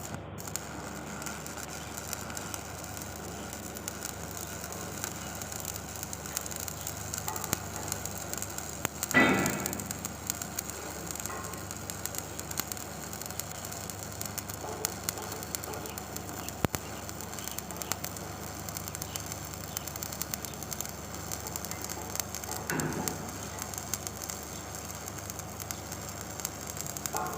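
Electric arc welding on a vertical joint: a steady crackling sizzle from the arc. A short, louder knock stands out about nine seconds in, with a fainter one near twenty-three seconds.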